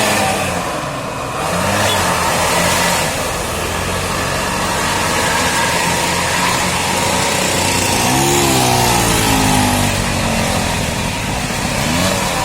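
Bus engine running in road traffic, with a brief sweep in pitch about eight seconds in.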